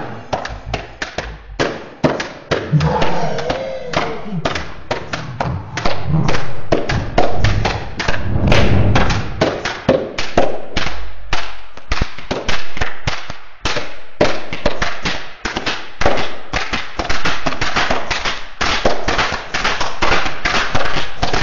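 Plastic toy hand clappers shaken as fast as possible together with rapid bare-hand clapping: a dense, fast run of clacks and claps.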